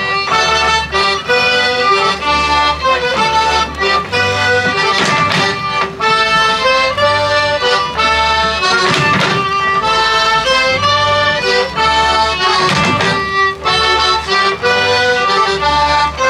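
Live Polish folk band playing a dance tune: a reedy melody over a long-held drone note, with a double bass keeping a steady beat underneath.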